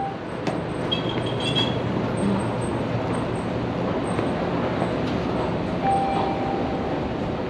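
Steady running noise of a rail vehicle in motion, with a brief beep-like tone near the end.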